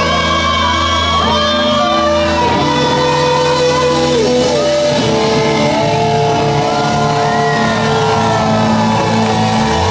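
Live band playing rock music: sustained, bending lead lines over a steady bass.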